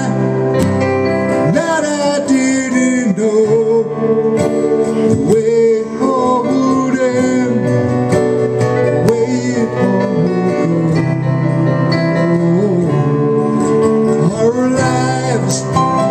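Live acoustic guitar and Korg keyboard playing a slow song together, amplified through PA speakers.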